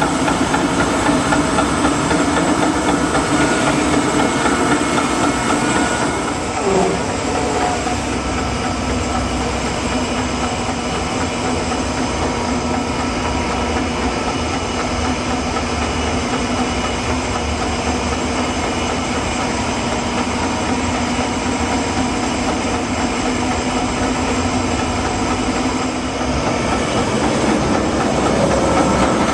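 A sawmill running steadily, its engine under load while the blade cuts lengthwise through a walnut log.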